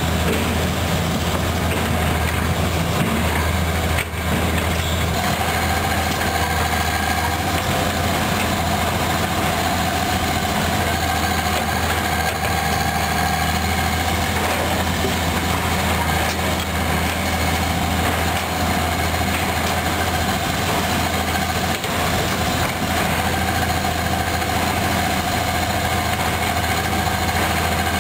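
Heavy diesel engines of a Komatsu PC200 hydraulic excavator and a SANY rotary drilling rig running, a steady low drone. A steady whine joins about five seconds in and holds.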